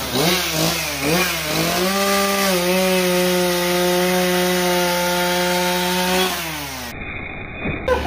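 Gas chainsaw cutting into a wooden carving block. Its engine pitch dips and rises several times as the chain bites, then holds steady through a long cut, and falls away about six seconds in as the throttle is let off.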